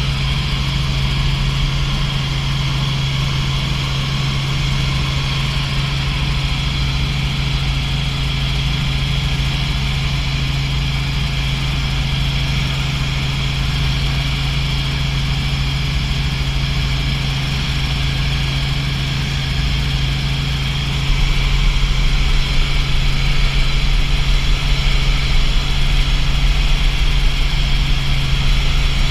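Small helicopter in cruise flight heard from inside the cabin: a steady drone of engine and rotor with a low hum. About two-thirds of the way through, a deeper rumble gets louder.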